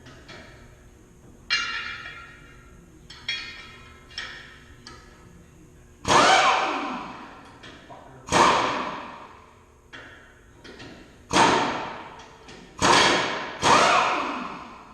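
Hammer blows on the steel of a disc harrow, each strike ringing out with a metallic tail, working a stuck bolt with damaged threads. A few lighter blows come first, then five heavy ones spaced about one to two seconds apart.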